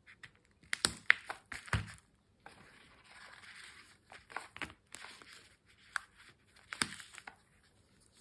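Packaging and a small battery pack handled up close: a few sharp taps and knocks about a second in, a couple of seconds of crinkling and rustling, then more scattered clicks and rustles.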